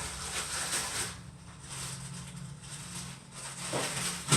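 Slime being handled and squished by hand: soft, irregular sticky squelching that swells and fades, over a steady low hum.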